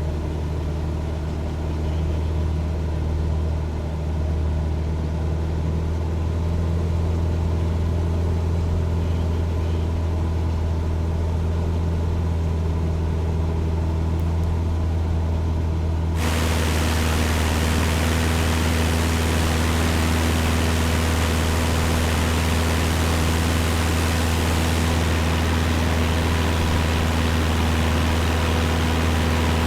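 Cessna 172 engine and propeller droning steadily, heard from inside the cabin. About halfway through, the sound abruptly turns much hissier, with a strong rush of air noise over the drone.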